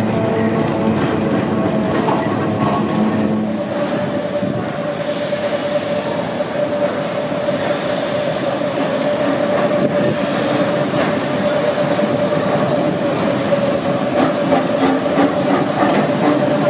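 Vintage electric streetcar running on street rails: a rumble of wheels and running gear, with a steady whine that sets in a few seconds in and holds almost to the end.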